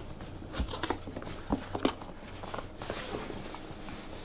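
Cardboard box being opened and moved by hand: flaps rustling and scraping, with a few knocks as the box is handled and set down.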